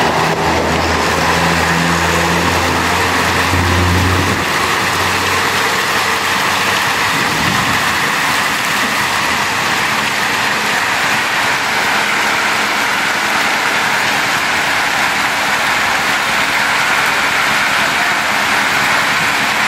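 Heavy rain mixed with hail pouring down steadily, a dense even hiss. A low engine hum runs under it and stops about four seconds in.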